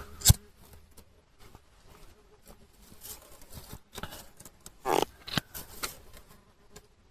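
A sharp click, then faint scattered clicks and rustles, with two short hissing bursts about five seconds in, as a damp wood fire is being lit.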